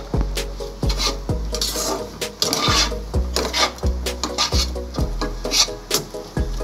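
A spatula scraping and tossing chowmein noodles against the sides of a pot in repeated rasping strokes. Background music with a steady beat plays underneath.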